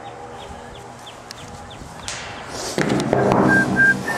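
Rustling and bumping of a handheld camcorder being moved, louder from about two-thirds of the way in, with a few short high squeaks near the end.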